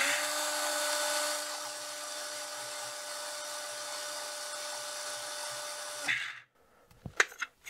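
Cordless drill running steadily with an even whine for about six seconds, spinning a cord maker to put more twist into four yarn strands being plied into a cord, then stopping suddenly. A few light clicks follow near the end.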